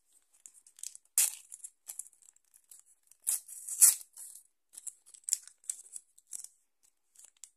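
Wrapper of a football trading card pack crinkling and tearing as it is pulled open, in a run of short, sharp rustles. The loudest come about a second in and between three and four seconds in.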